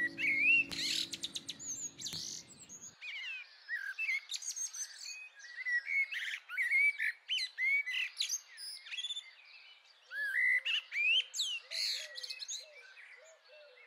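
Several birds chirping and singing in a dense chorus of short rising and falling calls. Music fades out in the first few seconds, and a few lower, repeated chirps join about ten seconds in.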